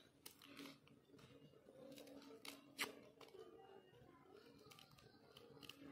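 Very faint clicks and scrapes of a kitchen knife peeling papery garlic skins off cloves, with one sharper click a little before the middle.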